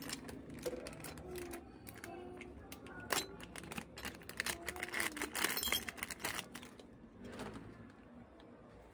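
Handling of a small clear plastic bag of metal hot-air nozzles: crinkling plastic with light clicks and clinks of the nozzles, busiest about halfway through.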